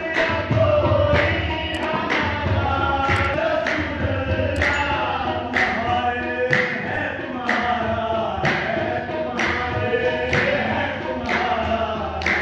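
Sufi devotional singing (a manqabat) by a group of voices singing together, with a sharp percussive beat about once a second.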